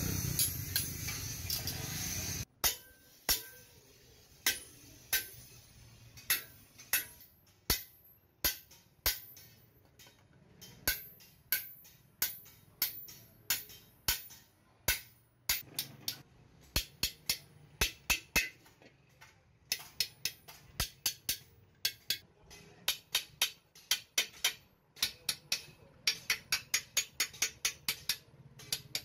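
Hammer tapping a hand punch into a steel hoe blade, stamping a decorative pattern: sharp metallic taps, one or two a second at first, quickening to about three a second near the end. A steady noise before them cuts off about two and a half seconds in.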